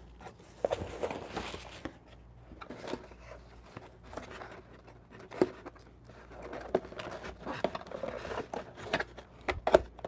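Hands handling cardboard boxes and crinkle-cut paper packing fill: irregular rustling and scraping with scattered sharp taps and clicks.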